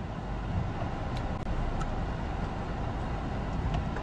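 Steady low engine and road noise of a car heard from inside its cabin as it slows on an icy road, with a few faint ticks.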